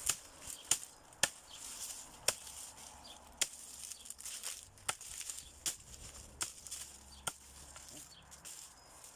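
Machete (itak) chopping leafy branches against a wooden block: about nine sharp chops at irregular intervals, with dry leaves rustling between the strikes.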